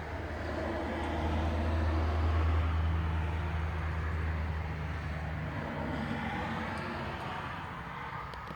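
A car or truck passing by: a low rumble swells to its loudest about two seconds in, then fades away over the next few seconds.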